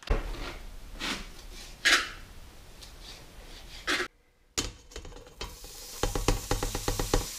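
Kitchen knife slicing raw bacon on a plastic cutting board, then the pieces scraped off the board into a steel pot, with a quick run of sharp ticks and clatter near the end.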